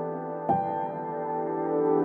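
Background music: slow, held chords in a calm ambient style, with a new chord coming in about half a second in.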